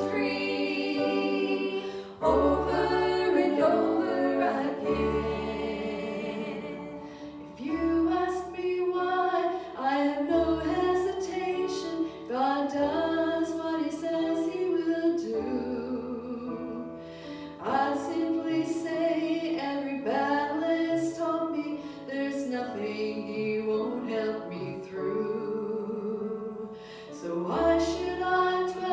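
Worship song: voices singing a melody over instrumental accompaniment with steady held bass notes.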